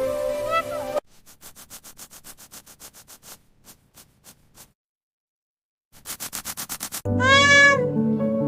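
Background music with a short meow. After about a second the music cuts off into a rapid run of clicks, about eight a second, that fade away. A moment of silence follows, another quick run of clicks, then the music and a long falling meow come back near the end.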